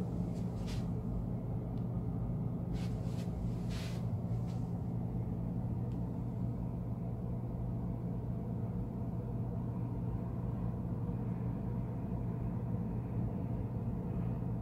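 Steady low rumble with a constant low hum: the distant roar of Niagara Falls heard from inside a high-rise hotel room. A few faint clicks about three to four seconds in.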